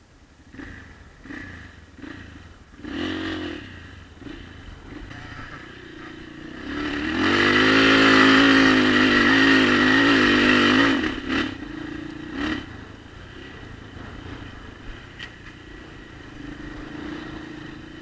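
Enduro dirt bike's engine, heard from the rider's own bike: a few short throttle blips, then about seven seconds in a loud, sustained run for some four seconds with the pitch rising and falling as it pulls up a steep grassy slope, then it settles to a lower, steady running.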